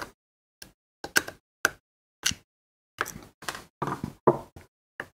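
Small clicks and knocks of a screwdriver, small screws and a plastic switch box being handled on a wooden workbench as the box is unscrewed and opened. Scattered single clicks at first, then a quicker run of knocks in the second half.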